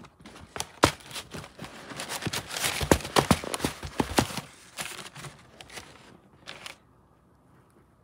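Crumpled paper stuffing crackling and rustling as it is pulled out of the toe of a new sneaker, dense for the first half, with one more short rustle a couple of seconds later.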